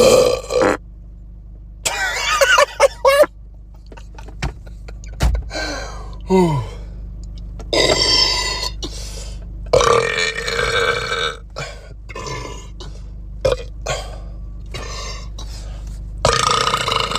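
A string of loud belches, one after another: a quick run of short burps about two to three seconds in, one that falls in pitch about six seconds in, and longer drawn-out ones around eight and ten seconds in and again near the end.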